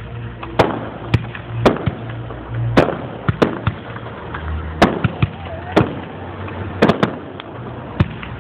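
Fireworks display: aerial shells bursting in a rapid, irregular series of sharp bangs, about a dozen, with a steady low rumble between them.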